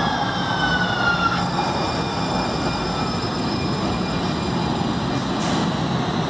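Siemens LRV4 light-rail train braking into an underground station platform: its traction motors whine in several tones that fall in pitch, settling into steady tones about a second and a half in, over the steady rumble of wheels on rails. A brief hiss comes about five seconds in.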